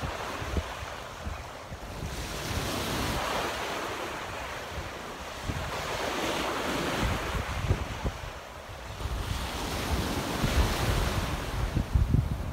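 Small waves breaking and washing up a sandy shore in a strong wind, the surf swelling and ebbing every few seconds, with wind buffeting the microphone.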